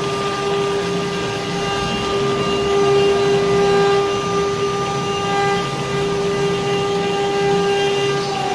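CNC stone-carving machine running, its spindle motor giving a steady high whine over a constant rushing noise.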